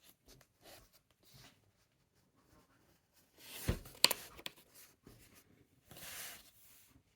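Cardboard packaging being handled and opened: soft scraping and rustling, a louder scrape with two sharp clicks about four seconds in, and another scrape near six seconds.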